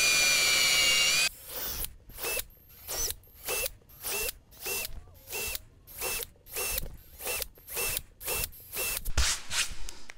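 Cordless drill with a small bit running for about a second, then a quick series of about a dozen short bursts, roughly one and a half a second, as it drills small pilot holes through the marked hole centres in a plywood sheet. Some irregular handling noise near the end.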